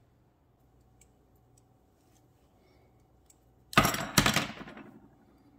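Two sharp metallic clinks close together with a brief ring, from a freshly cut copper rod and a tubing cutter being handled on a workbench.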